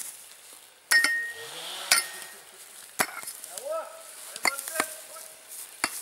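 A hand digging tool chopping into stony forest soil to cut a firebreak down to bare mineral earth. There are six sharp strikes about a second apart, the first two ringing briefly as metal hits stone, with earth scraping between them.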